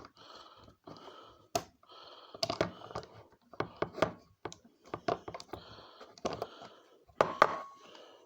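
Small flathead screwdriver clicking and scraping in the grip screw of a Heritage Rough Rider revolver, in irregular clicks and short scrapes, with the screw not coming loose.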